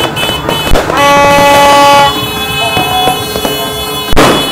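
A horn sounds one steady, loud blast lasting about a second, among fireworks going off: a sharp firecracker bang just before the blast and another near the end.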